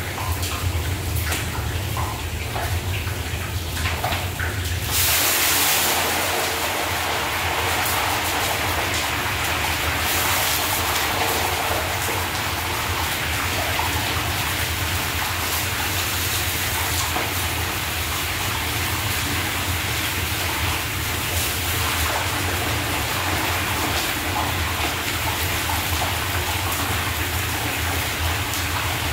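Chunks of meat frying in hot cottonseed oil in a large plov kazan: a steady, loud sizzle that jumps up about five seconds in and holds, over a low steady hum.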